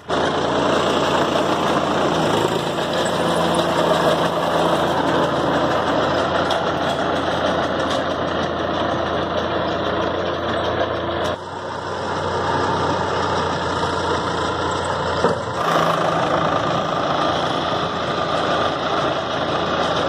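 Diesel tractor engine running steadily under load while it drives a tractor-mounted round baler picking up paddy straw, a dense mechanical din. The sound shifts abruptly about 11 and 15 seconds in.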